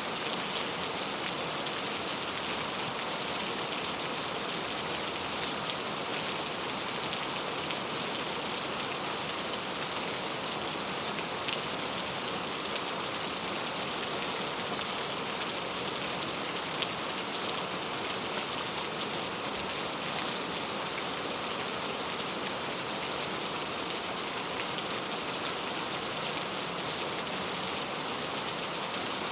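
Rain falling steadily on a road, an even hiss with a few sharper drop ticks here and there.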